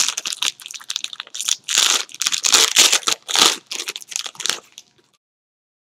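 Trading card pack wrapper crinkling and tearing as it is opened, in uneven bursts, then cutting off suddenly about five seconds in.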